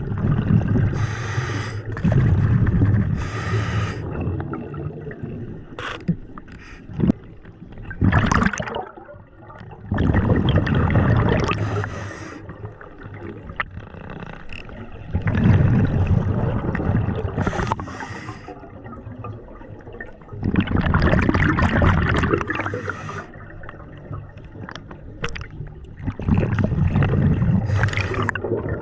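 Scuba diver breathing underwater through a regulator: each breath ends in a burst of exhaled bubbles gurgling past the microphone. There are about five breath cycles, spaced roughly five seconds apart.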